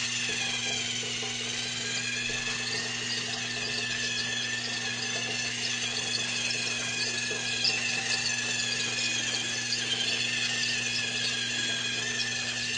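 Motorised toy train running, its small electric motor giving a continuous high whine and squeal that wavers slowly in pitch, over a steady low hum.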